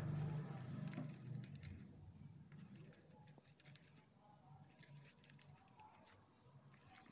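Soft, wet squelching of a hand working thick egg-and-cornflour batter around a steel bowl, growing fainter after about two seconds.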